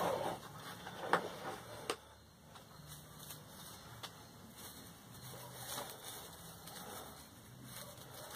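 Hands working wire onto boxwood bonsai branches: three short sharp clicks in the first two seconds, the loudest about a second in, then soft rustling and small ticks of wire and foliage being handled.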